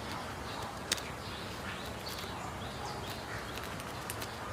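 Faint bird chirps over steady background noise, with one sharp click about a second in.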